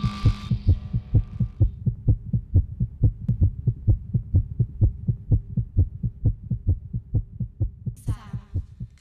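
Racing heartbeat sound effect: fast, even low thuds, about five a second, with a musical tone fading out over the first second or two.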